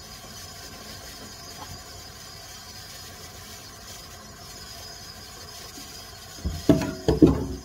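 Low steady background noise, then about six and a half seconds in a burst of loud crinkling as a plastic bag is handled close to the microphone.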